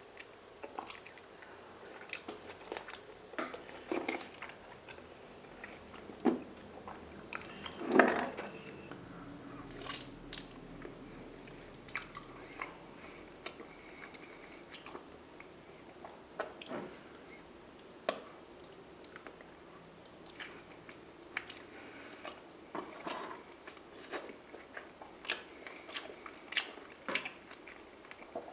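Close-up chewing and biting of raw salmon: a steady run of wet mouth smacks and clicks. One louder smack comes about eight seconds in.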